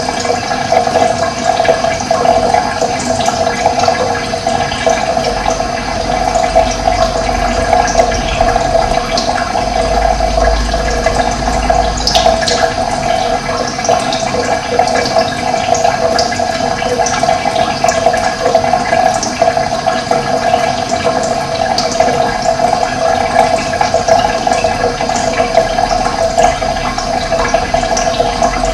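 Running water rushing steadily, with small birds chirping in short, scattered calls over it.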